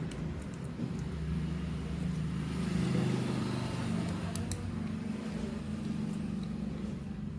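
Small motorcycle engine running steadily at idle, its pitch and level rising slightly about two to three seconds in.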